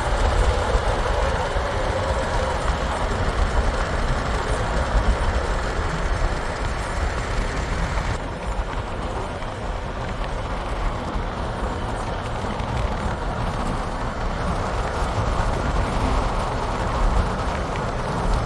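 Steady road noise from inside a moving road vehicle: a deep tyre-and-engine rumble under a broad hiss, the hiss dropping off about eight seconds in.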